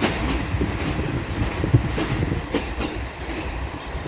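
Passenger train running along the track, heard from aboard: a steady rumble with irregular clicks of the wheels over the rails, the sharpest a little under two seconds in.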